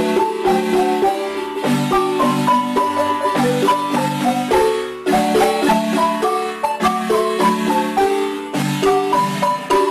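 Background marimba music: a lively tune of quick mallet-struck notes and rolled chords, its phrase repeating every few seconds.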